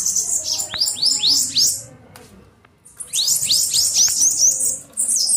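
Bananaquit singing: two runs of quick, high-pitched notes that each sweep upward, with a pause of about a second between them.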